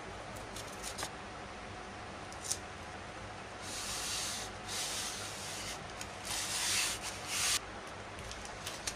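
Clear packing tape being pulled off its roll and pressed along a polystyrene foam block, in four drawn-out pulls from about four seconds in to near the end. A few light taps and clicks from handling the foam come before.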